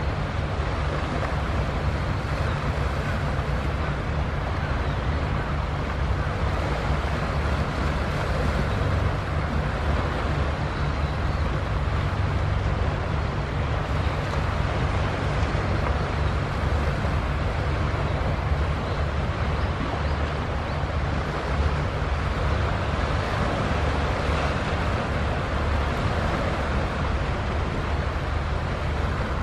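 Steady wind rumbling on the microphone over an even wash of sea noise.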